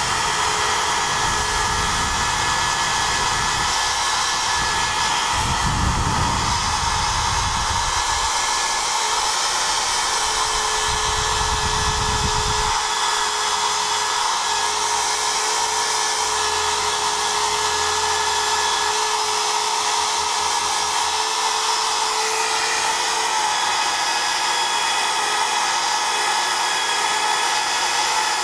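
Bosch corded drill running steadily with a buffing wheel in its chuck, polishing the steel axe head. It gives a steady motor whine, with a low rumble that comes and goes over the first dozen seconds.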